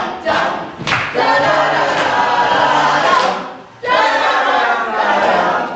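A crowd of people cheering and shouting together, with clapping. The voices drop away briefly about three and a half seconds in, then pick up again.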